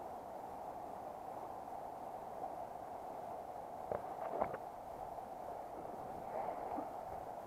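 Shallow river water running steadily over stones, a constant rushing hiss, with a couple of short clicks about four seconds in.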